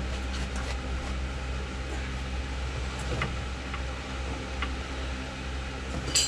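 A steady mechanical hum, with scattered faint clicks and metal taps from a hydraulic floor jack being worked, and a sharper clank near the end.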